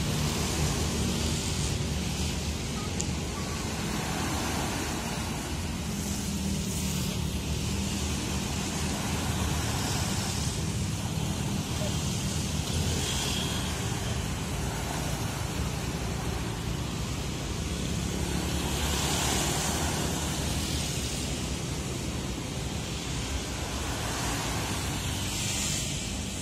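Steady low motor drone under a hiss of wind and water that swells and fades every few seconds.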